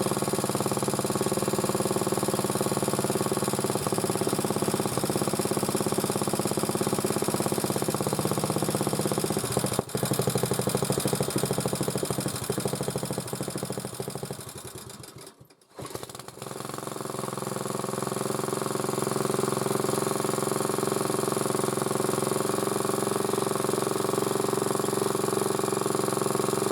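Single-cylinder four-stroke engine of an MTD motor-cultivator running on a test start after its valve clearances were set. It runs steadily, then fades and drops out about fifteen seconds in, and within a second is running again and stays steady.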